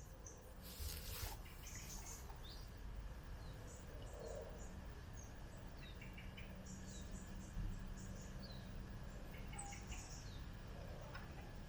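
Birds chirping and calling with many short high notes, some sliding downward, over a steady low rumble. A brief rush of noise comes about a second in.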